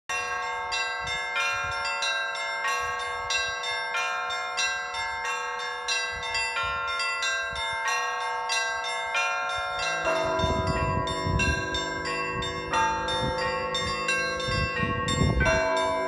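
Russian Orthodox church bells ringing a peal (zvon): small treble bells struck in a quick, steady pattern, with deeper bells joining about ten seconds in.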